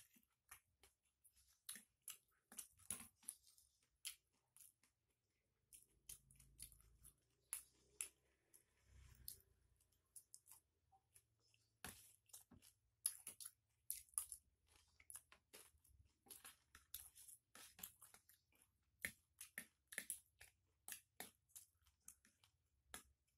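Faint close-up chewing with crunches, mixed with a metal spoon and fork clicking and scraping against a plastic bowl. Many short sharp clicks, busier in the second half.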